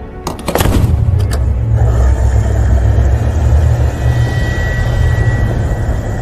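A few sharp clicks in the first second and a half, then a steady, loud low rumble of a vehicle engine running.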